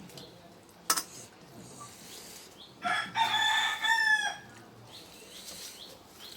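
A rooster crowing once, a single call of about a second and a half. There is also a sharp click about a second in.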